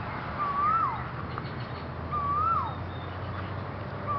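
A bird calling over and over, about every second and a half to two seconds, each call a short whistle that holds level, rises a little, then drops sharply. A steady low hum runs underneath.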